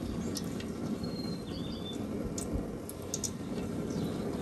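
Steady low noise from a wok of oil heating on a gas stove, with a few faint taps of a wooden spatula. A short high bird chirp comes about a second in.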